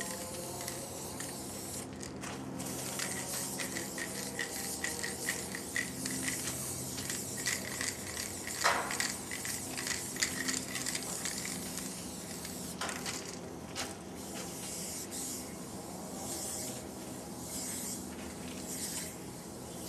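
Aerosol spray-paint can hissing in repeated strokes with short breaks between them, as letters are painted. A short, sharp sound stands out about eight and a half seconds in.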